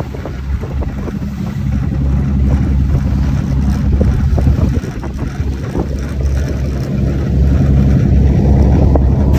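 Fishing boat's engine running with a steady low drone, with rough wind and water noise over it; the noise grows louder about seven seconds in.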